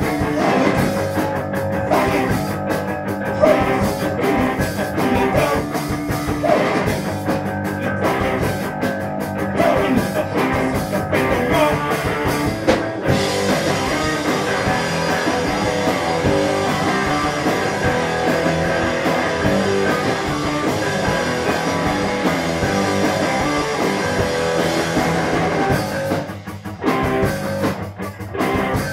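A live rock band playing: electric guitar and drum kit, with a singer singing into the microphone. About halfway through the sound turns fuller and brighter, and it briefly thins out shortly before the end.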